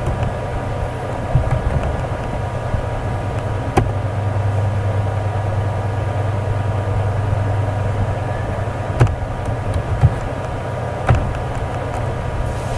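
Steady low hum and hiss of background noise with faint steady tones above it, broken by a few sharp clicks about four, nine and eleven seconds in.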